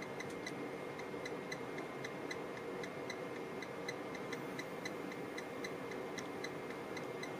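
Amplifier test bench running a 2-ohm power test: a steady hum with light ticking, about three to four ticks a second.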